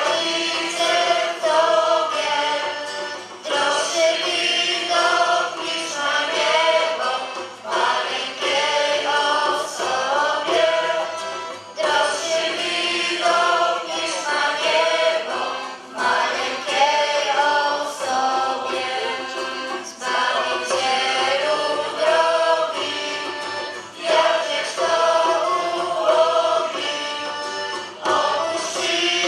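A choir of many voices singing a Christmas carol in continuous phrases of about two seconds each.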